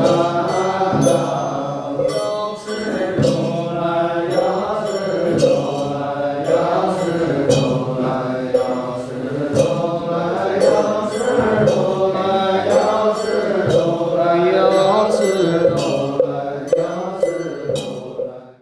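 Buddhist monks chanting sutras in a steady, rhythmic drone, over a regular beat of knocks. It cuts off abruptly at the end.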